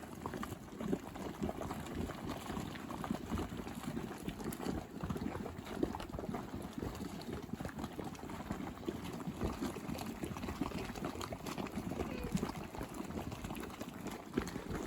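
Geothermal boiling mud pool bubbling, thick mud plopping and bursting in a dense, irregular, unbroken run of small pops.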